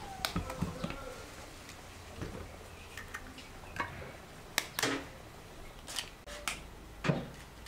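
Eggs tapped against the rim of a plastic mixing bowl and their shells cracked open: a scattered series of short sharp taps and cracks, the loudest a close pair about halfway through.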